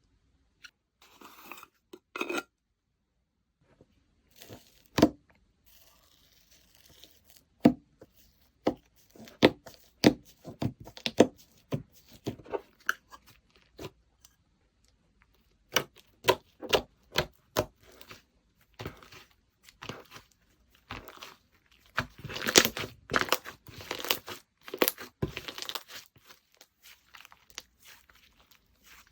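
Slime being pressed, poked and stretched by hand, giving irregular sharp pops and clicks, with a denser run of crackling about three-quarters of the way through.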